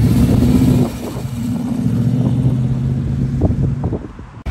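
First-generation (1956–57) Chevrolet Corvette's V8 engine pulling away, a steady low engine note that dips briefly about a second in, picks up again and then falls away near the end.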